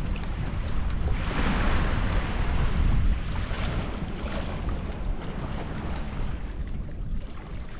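Wind rumbling on the microphone over small waves lapping in the shallows. A hissing wash of water, someone wading and splashing through shallow water, swells about a second in and fades after about three seconds.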